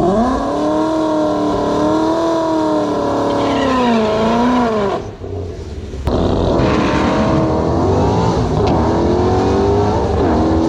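Car engine revving hard under acceleration. Its pitch climbs and drops back several times, and the sound dips briefly about five seconds in before it picks up again.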